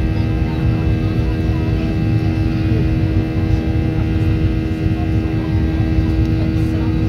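Cabin noise of a Boeing 737-800 climbing after takeoff: a steady low rumble from its CFM56-7B turbofans with a constant hum of several fan tones, heard inside the cabin just ahead of the wing.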